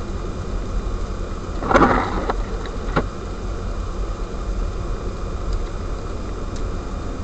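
Steady road and wind noise inside a car driving through a blizzard on a snow-covered road. A brief louder clatter about two seconds in, followed by a sharp click about a second later.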